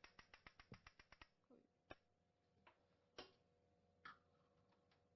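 Faint rapid clicking, about ten clicks a second for just over a second, then three single clicks about a second apart: small lab ware tapped and handled while sodium chloride is transferred into a beaker.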